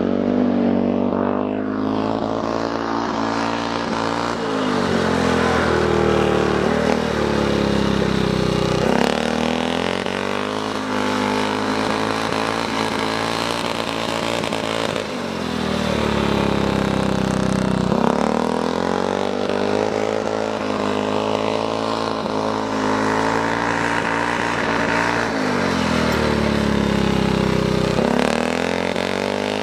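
Speedway motorcycle's single-cylinder engine running hard around an ice track, its pitch repeatedly climbing and dropping away every several seconds as it accelerates, backs off and passes.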